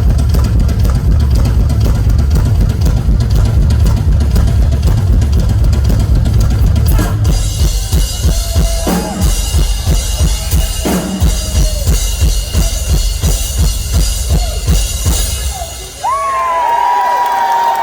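Rock drum kit solo: a dense, fast run of bass drum and tom strokes, then sparser hits under washing cymbals. About sixteen seconds in the drumming stops and a crowd cheers and whistles.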